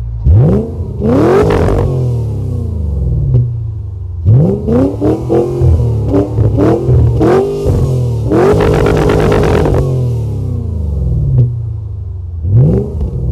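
Volvo XC90's Yamaha-built 4.4 V8 revved at standstill through its lightly modified stainless-steel exhaust: a string of quick throttle blips and a longer rev held high about eight seconds in, each dropping back to a bass rumble at idle.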